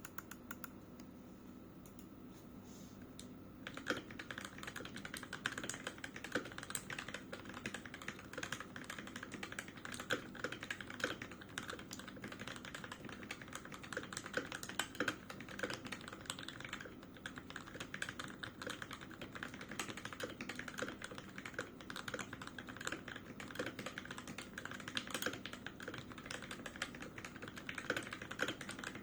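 Typing on a Keychron K6 mechanical keyboard with lubed and filmed Gateron Milky Yellow linear switches and stock ABS keycaps: a few scattered keystrokes, then fast, continuous typing from about four seconds in.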